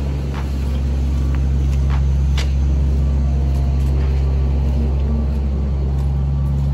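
An idling engine gives a steady low hum, with a few short ticks of footsteps over it.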